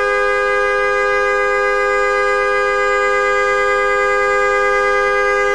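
New FIAMM high-note and low-note horns on a 2009 Toyota Camry sounding together in one long, steady, unbroken blast, heard from inside the car. The horn is held down as a test that the fuse and wiring can carry the new horns' current draw.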